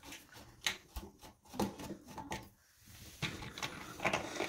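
Light clicks and knocks of hard plastic being handled as the plastic mounting screws of a non-electric bidet attachment are loosened. A few scattered clicks come first, then a quicker run of them near the end.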